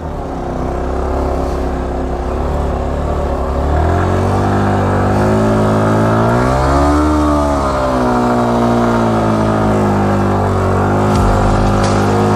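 Yamaha R15M's single-cylinder engine pulling in first gear at walking pace through soft sand. The revs rise about four seconds in and swell up and back down around seven seconds.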